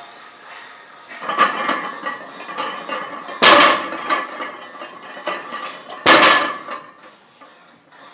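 Barbell loaded with about 470 lb of iron plates being deadlifted for two reps: the plates clank against the bar and rubber floor in three sharp metallic strikes, the loudest about three and a half and six seconds in as the bar is set down, each with a short ring after.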